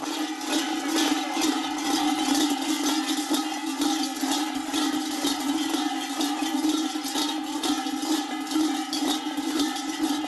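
Large metal bells worn at the waists of masked mummers clanging together as they stride along, a dense continuous jangling without let-up.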